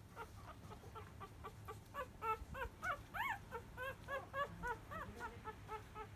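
Five-day-old Labrador Retriever puppies squeaking while they nurse: a quick run of short, high, rising-and-falling squeaks, several a second, as the litter jostles for teats. The loudest squeak comes a little past three seconds in.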